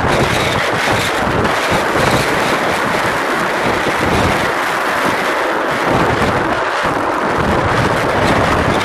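Strong wind blowing across the microphone: a loud, steady rush with a gusting, fluttering rumble in the low end.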